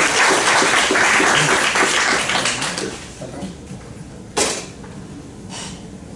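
Audience applauding, fading out after about three seconds; a single sharp knock follows a little past four seconds in.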